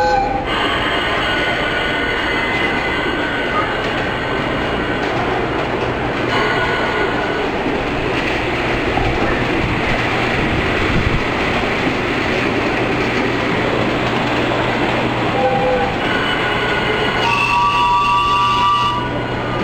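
Recorded sound effect of a train running, played through loudspeakers beside a museum display train: a steady, loud rumbling run with no clear start or stop.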